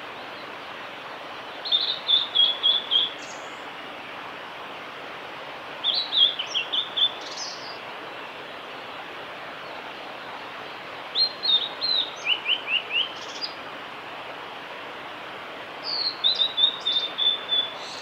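Male blue-and-white flycatcher singing its territorial song: four phrases about four to five seconds apart, each a quick run of short notes closing with a brief higher note, over a steady background hiss.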